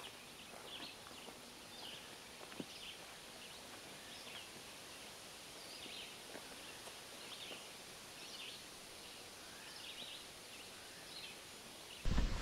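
Quiet forest ambience: a steady faint hiss with scattered faint bird calls, about one or two a second. A much louder noise cuts in abruptly at the very end.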